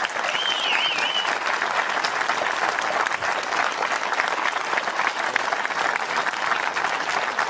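Audience applauding steadily outdoors at the end of a talk, with a brief wavering whistle in the first second or so.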